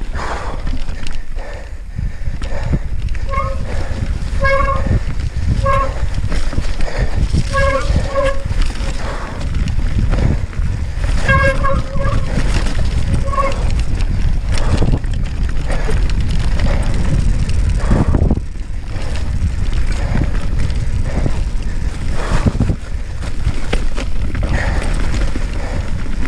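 YT Capra mountain bike riding fast down a rough moorland trail: wind buffeting the microphone and a constant rattle of clicks and knocks from the bike over the bumps. Two stretches of short, repeated honking tones come in about four seconds in and again around eleven seconds in.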